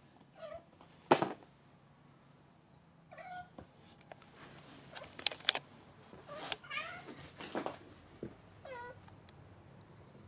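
Black kitten meowing in short calls, about four times, the last one falling in pitch. A few sharp knocks or clicks come between the calls, the loudest about a second in.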